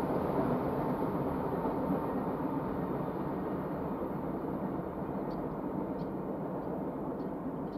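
Noise of a train going away down the line after passing, a steady sound slowly getting quieter, with a few faint high ticks in the second half.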